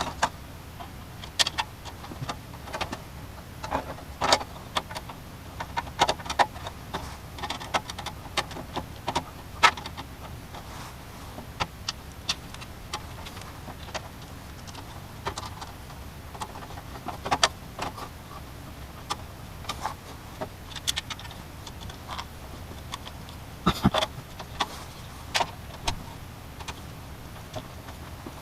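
Scattered clicks, taps and light rattles of plastic and metal parts being handled as case fans are fitted into a Corsair Carbide SPEC-02 PC case, over a low steady hum.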